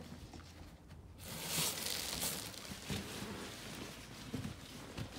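Soft rustling of fabric as a child wriggles inside a large patterned cushion cover, with a few soft knocks, starting about a second in after a near-quiet moment.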